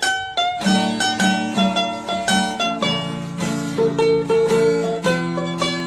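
Background music led by a plucked string instrument, with quick notes about three a second over a low accompaniment.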